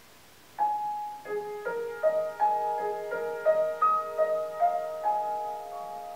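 Solo piano music, a slow, gentle melody. After about half a second of quiet a single note sounds, then a run of notes, roughly two or three a second, each left ringing into the next and fading toward the end.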